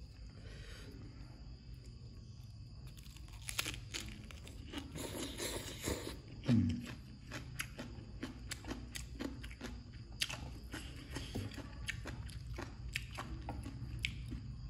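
Close-up crunching and chewing of papaya salad, a string of short sharp crunches starting about three seconds in. A faint steady high whine runs underneath.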